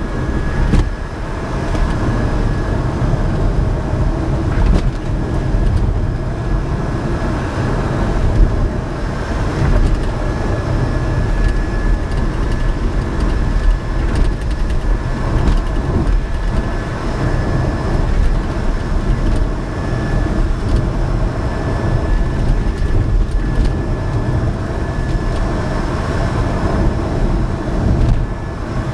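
Cabin noise of a REVA G-Wiz electric city car on the move, with no engine running: a loud, steady low rumble from the road and tyres, a thin steady high whine, and a few brief knocks.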